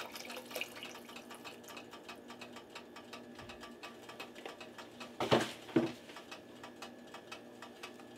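The tail of a chicken-broth pour trickles into a pot of vegetables at the very start, then faint rapid ticking runs on. Two loud sharp knocks come about half a second apart, a little past the middle, as broth cartons are handled.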